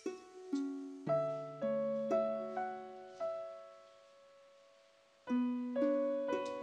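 Slow, gentle piano music: single notes struck about every half second, each fading away, with a lull of a couple of seconds past the middle before the playing resumes.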